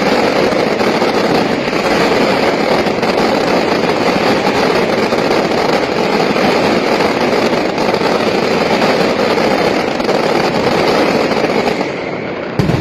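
Fireworks going off in a dense, continuous crackle of rapid pops, with an abrupt change near the end.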